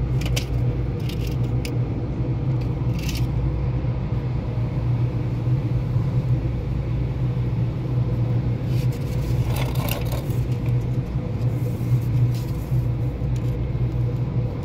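Steady low mechanical rumble, with a few light clicks and taps.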